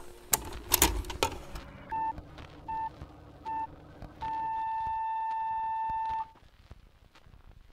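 A few sharp clicks, then three short electronic beeps of one steady pitch about three-quarters of a second apart, followed by the same beep held for about two seconds before it cuts off.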